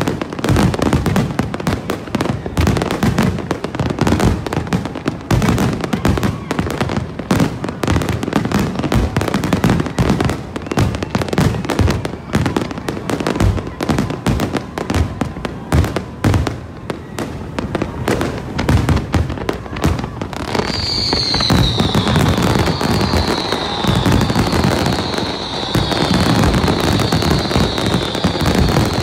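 A big fireworks display: a dense, continuous volley of aerial shells bursting and crackling. About two-thirds of the way through, a run of high whistles, each sliding down in pitch, starts up over the bangs and keeps repeating.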